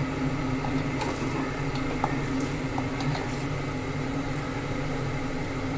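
A steady low mechanical hum, with a few faint taps and clinks as rice is tipped into boiling water in an aluminium pressure cooker and spread with a perforated steel ladle.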